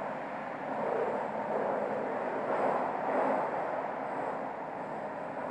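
Steady rushing noise of a Toei 12-000 series Oedo Line subway train standing at an underground platform, a little louder for a couple of seconds around the middle.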